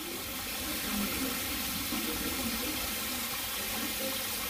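Water gushing out of a full brewery hot liquor tank's outlet and splashing onto a flooded floor, a steady rushing hiss as the 500-litre tank is dumped.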